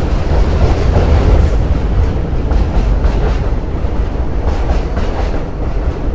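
New York City Subway R-32 train moving along the track: a heavy steady rumble with the wheels clacking over rail joints, and a short high hiss about a second and a half in.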